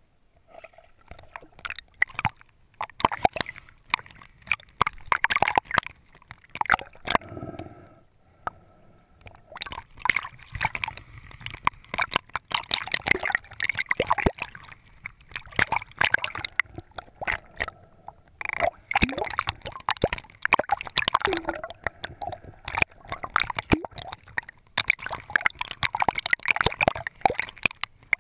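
Water sloshing and gurgling around a swimmer's GoPro camera, in irregular splashing bursts with crackling clicks and two short lulls, about a third of the way in and again about two-thirds in.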